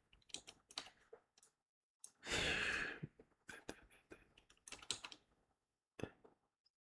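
Faint scattered clicks from working a computer. About two seconds in comes a breathy exhale into the microphone lasting under a second, the loudest sound here.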